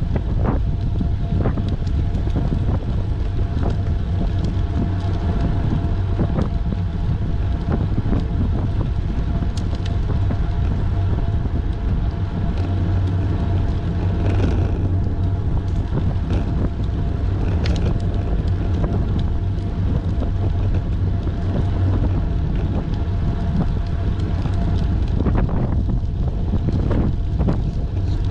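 Wind buffeting the microphone of a camera on a moving bicycle: a steady, loud low rumble, with faint road noise and a few light clicks.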